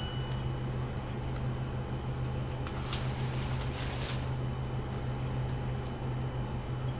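Steady low hum of room tone, with a short rustle about three seconds in as a cat brushes against a cardboard box.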